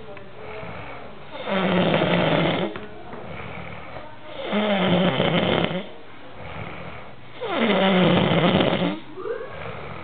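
Heavy snoring from a sleeper: three loud snores about three seconds apart, with quieter breaths in between.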